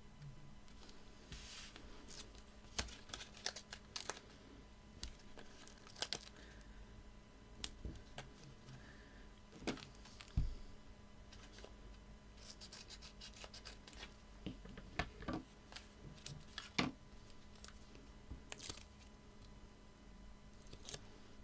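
Paper and card being handled on a craft desk: scattered light clicks and brief rustles as release paper is peeled off foam pads and paper toppers are pressed onto a card, with a couple of louder soft knocks on the desk.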